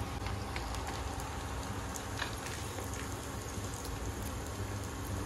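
Steady rushing hiss with a few faint scattered clicks.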